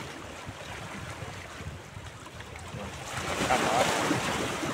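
Small sea waves lapping against shoreline rocks, with wind buffeting the microphone; about three seconds in a wave washes louder over the rocks.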